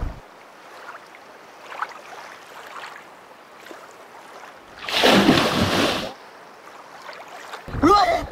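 Faint steady hiss of open-air river ambience, broken about five seconds in by a loud rushing burst lasting about a second. Near the end comes a boy's loud shout.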